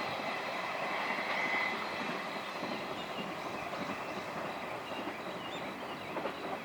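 Container wagons of a freight train rolling past on the rails, a steady rolling rail noise that slowly fades as the train goes by.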